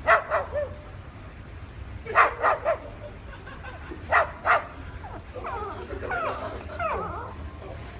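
A dog barking in quick groups of two or three short barks, then a wavering, whining cry from about five seconds in.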